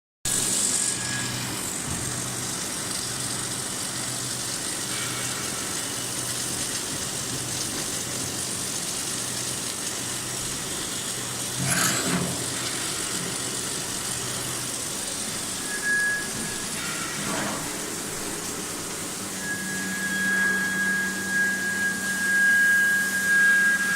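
Submerged arc welding equipment running: a steady machine hum and hiss with a low pulsing hum, two brief louder swishes about 12 and 17 seconds in, and a steady high whine joining near the end.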